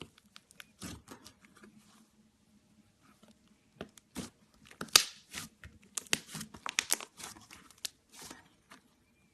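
White slime being stretched and pressed by hand, giving off sharp crackling pops and tearing sounds that come sparsely at first and then thick and loud about halfway in.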